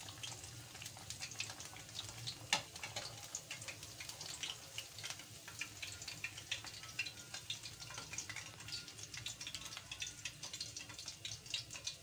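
Oil sizzling and crackling steadily around a bachka, a rice-batter fritter with peas, as it deep-fries in a pan. There is one sharper click about two and a half seconds in.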